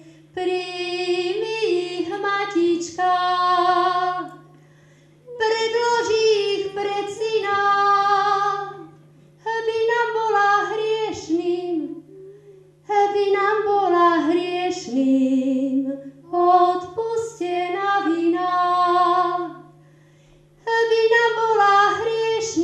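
A woman singing a Slovak Marian spiritual song solo into a microphone, without accompaniment. She sings in phrases of two to four seconds with short pauses between them.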